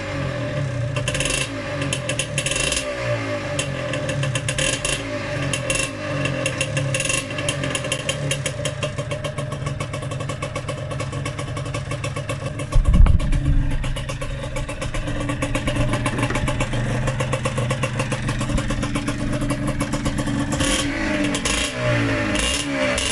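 Yamaha DTR125 125cc two-stroke single-cylinder engine running, revved up and down at the start and again near the end. A loud low thud comes about 13 seconds in.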